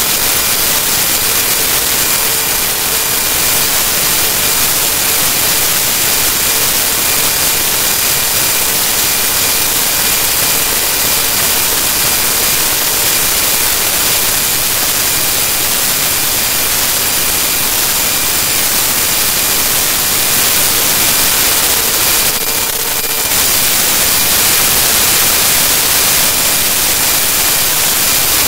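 Loud, steady hiss of static, the noise of corrupted digital audio, with faint steady tones under it. It dips briefly about 23 seconds in and is slightly louder after that.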